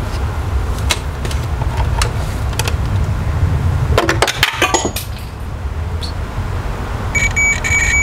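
AstroAI digital multimeter's continuity beep, a steady high tone sounding for about a second near the end, as its probes bridge the two pins of a new A/C low-pressure cycling switch: the switch is closed, the sign that the refrigerant pressure is correct. Before it, light clicks and clinks of the probes and tools over a steady low rumble.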